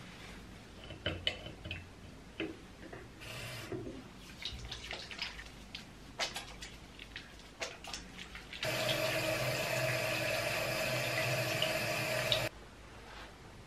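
Hands being lathered, with small clicks and rubbing sounds, then a bathroom mixer tap running into a washbasin for about four seconds while the hands are rinsed, before the tap is shut off suddenly.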